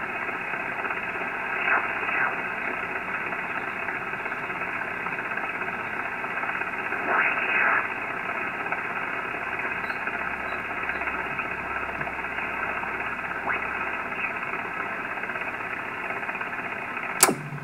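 Receiver audio from a Ten-Tec Jupiter 538 HF transceiver being tuned across the 15-metre band in upper sideband: a steady band-noise hiss with no treble, broken three times by brief snatches of stations passing through as the dial turns. A sharp click near the end.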